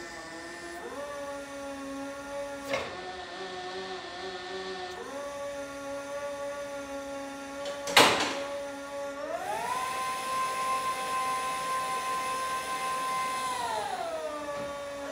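Yale ERP30 electric forklift's hydraulic pump motor whining as the mast and forks are worked, the pitch stepping up and down. A sharp clunk comes about eight seconds in; soon after, the whine rises steeply, holds high for about four seconds, then falls back.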